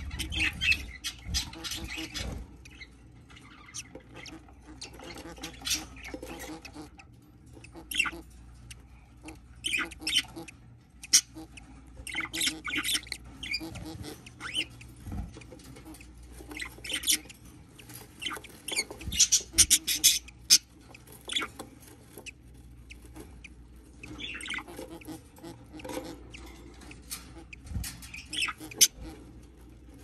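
Budgerigar hen chirping and chattering in short bursts while she shuffles about on wood shavings in a nest box, with scattered scratchy rustles and clicks.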